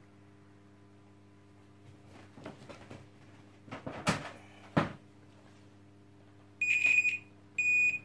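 Multimeter continuity buzzer giving two steady high beeps, each about half a second long, near the end, as a test probe touches the wires of a vacuum cleaner's power cord: the beep signals that the wire conducts. Before that, rustling and a few clicks from handling the probes and cable.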